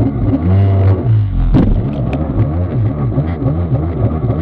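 Kawasaki 750SX stand-up jet ski's two-stroke twin running under way, its pitch swinging up and down about three times a second. It dips briefly about a second and a half in, with one sharp knock.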